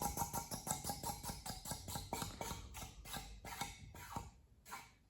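Emerson ceiling fan slowing down, with a rapid ticking that gets slower and fainter over about four seconds before dying away.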